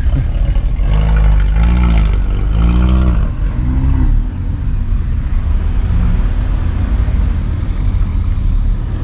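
Car engine revving up and falling back about four times in quick succession, then settling into a steady low drone.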